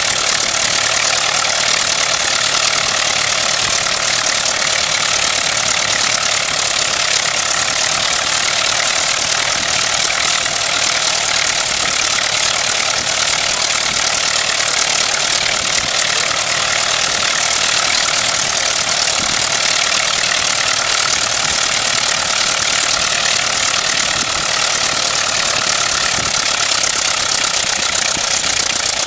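The reproduction 1909 Wright Military Flyer's four-cylinder engine running steadily on the ground, turning its two propellers.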